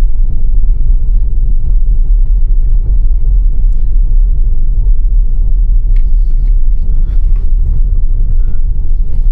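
Steady low rumble of a Tesla electric car driving on a snow-covered road, mostly tyre and road noise with no engine note, and a few faint clicks about six to seven and a half seconds in.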